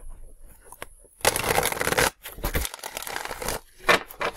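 A deck of tarot cards being shuffled by hand: two spells of quick card rustling, each about a second long, then a couple of sharp clicks near the end.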